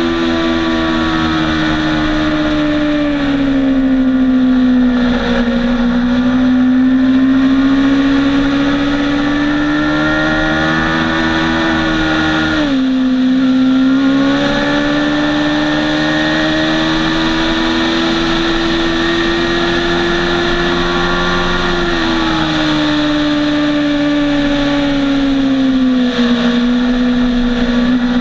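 Motorcycle engine running hard on a track lap, heard from an onboard camera. Its pitch climbs slowly, drops sharply at a gear change about thirteen seconds in, and eases off twice as the bike slows for corners, a few seconds in and again after about twenty-two seconds.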